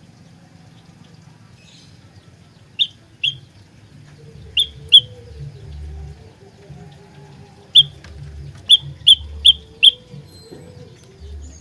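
Olive-backed tailorbird calling with loud, short, sharp chip notes: two pairs, a single note, then a quick run of four at about two and a half notes a second.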